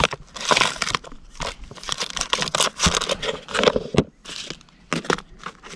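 Plastic packaging crinkling and rustling in the hands, a string of irregular short crackles as it is handled.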